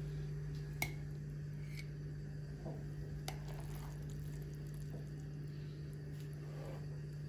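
A few sharp, light clicks of a metal spoon against a glass baking dish and a plate as a slice of syrup-soaked semolina cake is lifted out and served, the sharpest about a second in, over a steady low hum.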